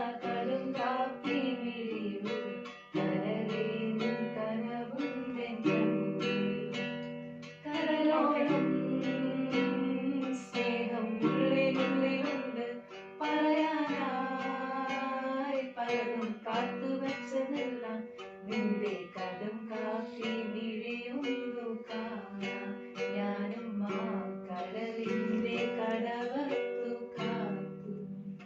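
Background music: acoustic guitar being plucked and strummed, with a voice singing along at times.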